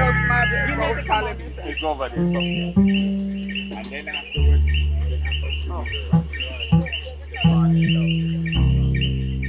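Electronic soundscape of deep, sustained bass tones that step to a new pitch every second or two, with rapid insect-like chirping repeating steadily over it.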